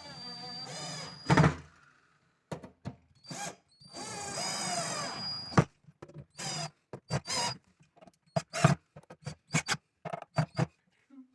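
Cordless drill-driver driving screws through a telescopic drawer slide. It runs in two bursts of a couple of seconds each, with a high whine, and each burst ends in a sharp knock as the screw seats. It is followed by a string of short clicks and knocks.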